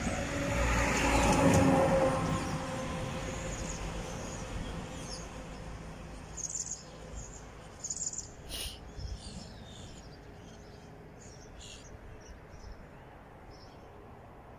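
A vehicle passes on the road, loudest about a second and a half in and fading away over the next few seconds. Birds then chirp in short scattered calls.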